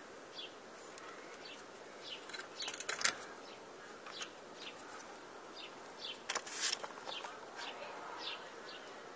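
Light metallic clicks and clatter from handling a bicycle crank arm and tools, in two short bursts about three and six seconds in, over small birds chirping in quick short notes.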